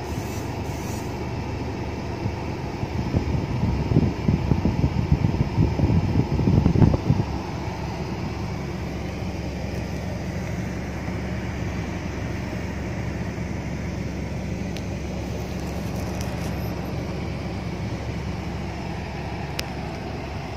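Steady low hum inside a car's cabin, sitting in slow traffic. About three seconds in, a louder, uneven rumble lasts some four seconds before the steady hum returns.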